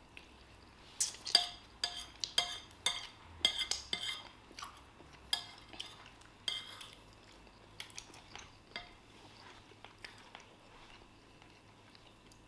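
Cutlery clinking and scraping against plates during a meal. Sharp clinks come thick and fast for the first half, then thin out to occasional clicks.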